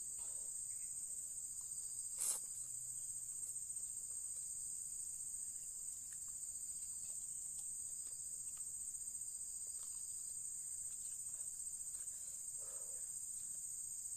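Insects trilling in a steady, unbroken high-pitched drone. A sharp click cuts in once a little over two seconds in, and faint eating noises from a noodle mukbang come and go underneath.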